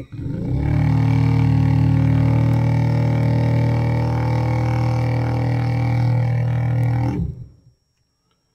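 Vevor mini vortex mixer's motor spinning a dropper bottle of acrylic paint pressed into its touch-activated rubber cup, shaking up the paint. It winds up over about half a second, runs with a steady low hum, and winds down about seven seconds in when the bottle is lifted off.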